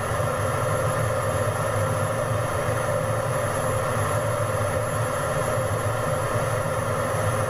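Steady noise inside a fighter jet's cockpit in flight: a constant drone of engine and airflow with a steady hum and a thin high whine over it.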